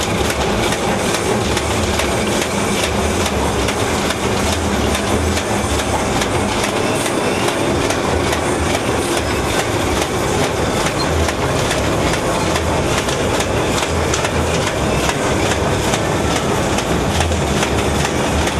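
Bar wrapping machine running at speed: a continuous mechanical clatter of rapid, even clicks over a steady running noise.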